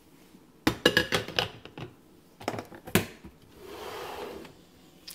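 Plastic and glass parts of a coffee maker being handled and set in place: a quick run of knocks and clatters about a second in, two more near three seconds, then a short soft rushing sound.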